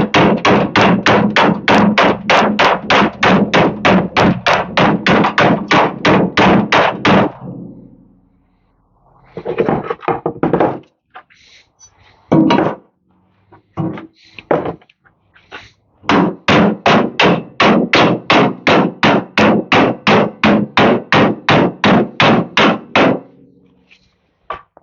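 Hammer blows through a wood block onto the bent sheet-metal hinge mount of a Bolens garden tractor hood, straightening it. The blows come in two steady runs of several seconds each at about four a second, with a pause holding a few scattered knocks between them.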